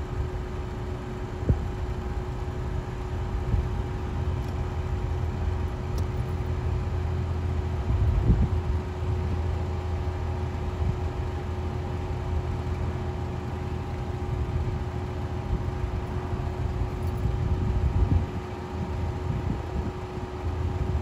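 Steady low engine rumble with a constant faint hum, and wind buffeting the microphone in uneven swells.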